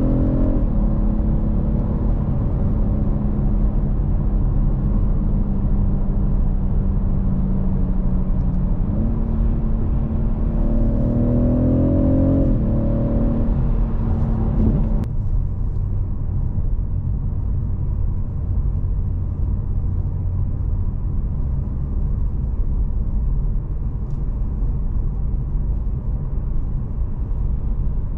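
Cabin sound of a BMW 840i's turbocharged 3.0-litre inline-six under way, a steady engine note that rises as the car accelerates about ten seconds in and drops back at a gear change. From about halfway, a steady low tyre and road rumble heard inside the cabin at cruising speed.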